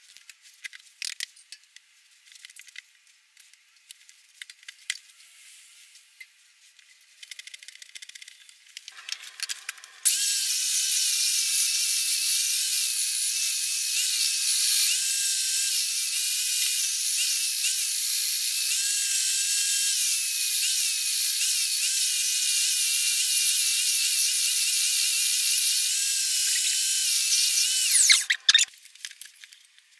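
Electric belt sander, clamped upside down on a stand, starts about ten seconds in and runs with a high-pitched whine that dips and wavers as the edge of a round wooden stool seat is pressed against the belt, then switches off near the end. Before it starts there are only faint handling clicks.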